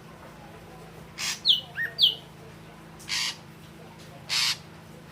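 Ashy drongo calling: three short harsh, rasping notes about a second apart, with a few brief clear whistled notes in between them early in the sequence.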